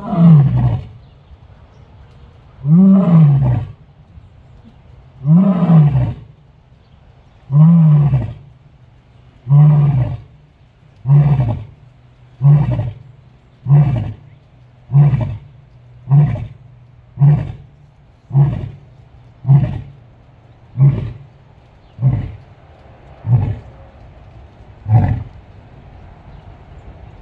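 Male lion roaring in a full bout of about seventeen calls: the first few are long, drawn-out roars, and the rest are shorter calls that come faster, roughly one a second by the end, each dropping in pitch.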